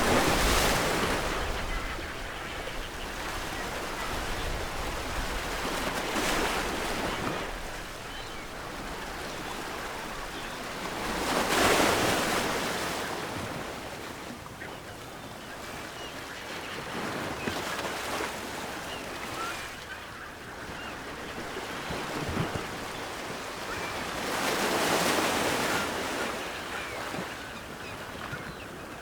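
Ocean waves breaking on the shore and washing back, a wave swelling and crashing every five to seven seconds over a steady hiss of surf. The loudest breakers come about twelve and twenty-five seconds in.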